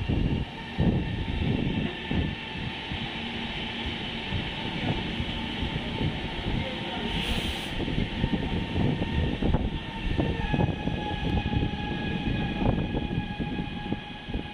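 Trenitalia ETR425 'Jazz' electric multiple unit moving through the station. Its steady electric whine of several tones sits over a rough, uneven rumble, with a brief hiss about seven seconds in.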